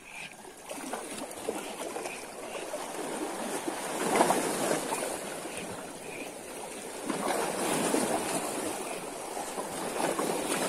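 Small sea waves washing and lapping, surging louder about four seconds in and again around seven to eight seconds.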